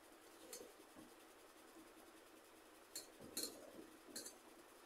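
Eating rice by hand from a steel plate: a few faint, scattered clicks and clinks of fingers on the plate, the loudest cluster a little past the middle, against near silence.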